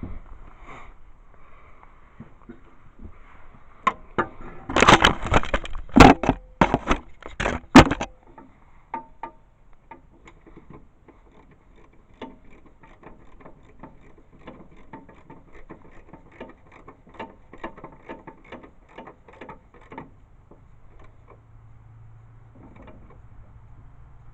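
Metal hand tools clanking on a mower engine, then a ratchet wrench clicking in quick runs, as the engine's mounting bolts are run down onto the steel mower deck. The clanking is loudest a few seconds in; lighter, even clicking follows for several seconds.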